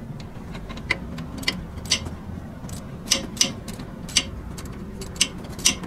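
Hand ratchet clicking in short strokes on a tight bolt: a run of sharp metallic clicks, a few tenths of a second apart, coming in small bunches.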